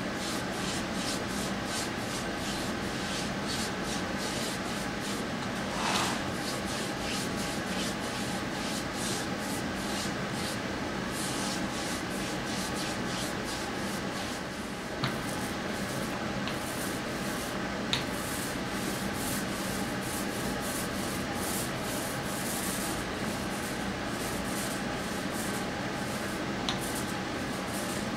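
A paintbrush scrubbing back and forth over a wooden track surface, laying on gloss enamel in a steady run of short scratchy strokes, over a constant background hum. A couple of sharp clicks stand out in the second half.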